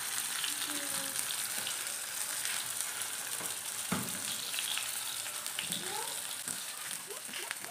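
Chicken koftas sizzling in shallow hot oil in a frying pan, a steady hiss, with a few light knocks of metal tongs against the pan, one clearer knock about four seconds in.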